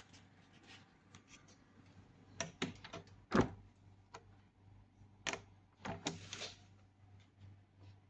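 Scattered light clicks and knocks at irregular intervals, the loudest about three and a half seconds in, over a faint steady low hum.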